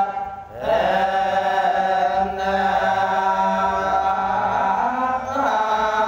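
Buddhist monk chanting Khmer Dhamma verses (thor) in a slow, drawn-out melodic recitation, amplified through a microphone. He breaks briefly for breath just after the start and comes back in on a rising note, holding long tones.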